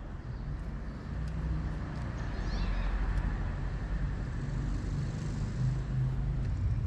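A motor vehicle running nearby: a steady low rumble that grows a little louder about two seconds in.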